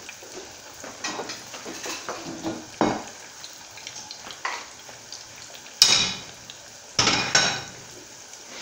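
Breaded cheese sticks frying in hot oil in a stainless steel pot with a steady sizzle. Sharp clinks and clatters of kitchen utensils and dishes break in several times, loudest about six and seven seconds in.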